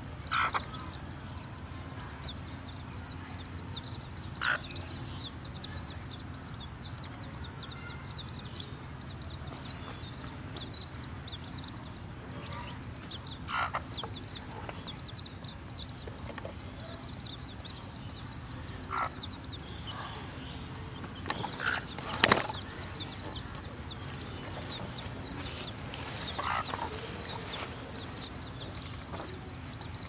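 A brood of young chicks peeping steadily in a dense, high-pitched chatter. A handful of louder single calls stand out at irregular moments, the loudest a sharp one a little past two-thirds through.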